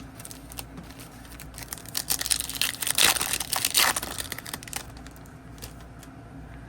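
Foil trading-card pack wrapper being torn open and crinkled, a dense crackling rustle that builds about two seconds in, peaks, and fades out by about five seconds.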